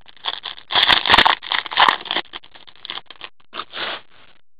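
Trading cards and their packaging handled with gloved hands: a run of short scratchy rustles and scrapes, loudest between about one and two seconds in, dying away near the end.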